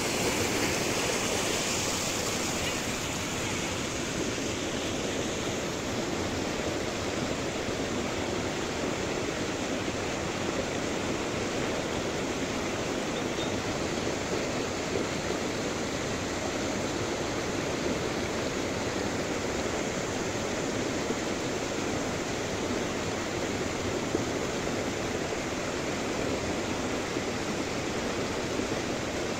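Small waterfall splashing, a steady rush of falling water.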